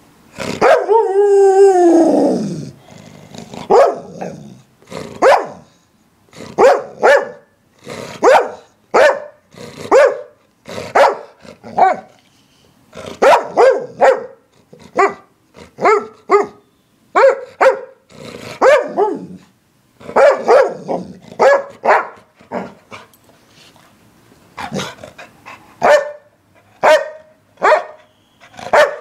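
English springer spaniel barking and 'talking': a long wavering call that falls in pitch opens it, then a run of short barks follows, about one a second.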